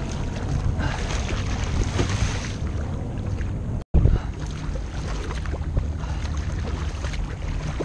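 Wind buffeting the microphone over water sloshing and splashing against a sea kayak's hull as it is paddled through choppy waves. The sound cuts out for an instant about four seconds in.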